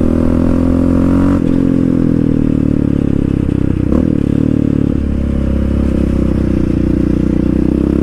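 Yamaha Raptor 700 quad's single-cylinder engine running through a Big Gun aftermarket dual exhaust while riding: a loud, steady exhaust note whose pitch shifts slightly a few times as the engine speed changes.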